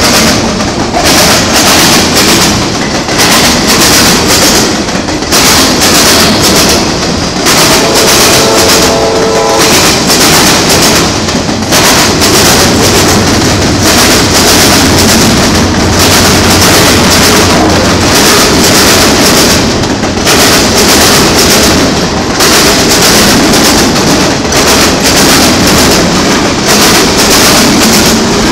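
Freight train autorack cars rolling past close by: a loud, steady rumble and clatter of steel wheels on the rails, with regular clacks as the trucks pass. A brief pitched tone sounds about eight seconds in.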